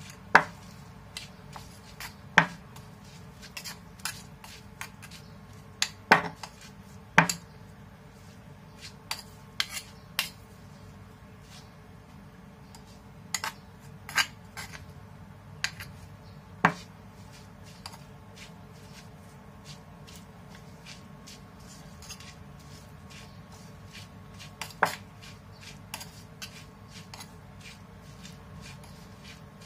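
Utensil clicking and knocking against a stone mortar as shredded papaya is tossed and mixed into sambal: irregular sharp clicks with a few louder knocks, busier in the first few seconds and sparser through the middle.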